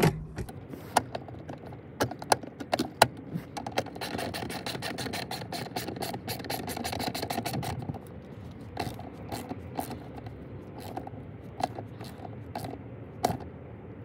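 Ratchet wrench clicking as the seat belt anchor bolt is run back in: scattered sharp clicks, a fast run of clicks from about four to eight seconds in, then slower single clicks.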